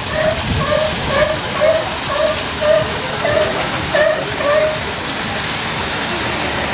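Sea lion barking in a quick series of short calls, about two a second, over a steady wash of background noise. The barking stops about two-thirds of the way through.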